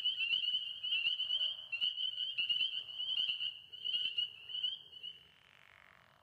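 A chorus of frogs calling, a dense high-pitched pulsing trill, with scattered sharp clicks underneath. The chorus dies away about five seconds in, leaving a soft rushing noise.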